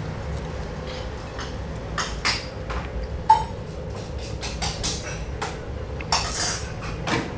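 Metal fork clinking and scraping against a plate while eating: a string of short clinks from about two seconds in, with one sharp ringing clink a little after three seconds.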